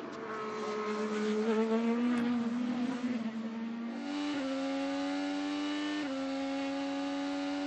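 IndyCar's twin-turbo V6 race engine running at a fairly steady pitch, wavering at first, then holding with small upward steps in pitch about four and six seconds in.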